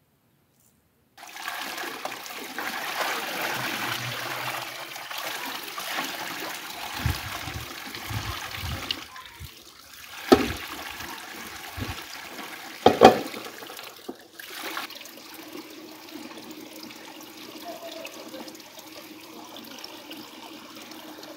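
Water running and splashing in a stone irrigation channel as food is washed in a metal basin, starting about a second in, with low sloshing thumps and two sharp knocks a few seconds apart in the middle.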